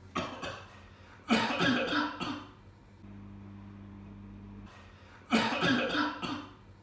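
A person coughing in loud fits: a short cough at the start, a fit of several coughs about a second in, and another fit about five seconds in. A steady low hum is heard between the fits.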